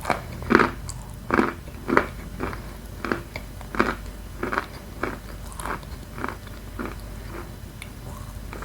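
Close-up chewing of crunchy edible chalk and clay: a steady run of crisp crunches, about one every half-second, louder in the first few seconds and softer toward the end.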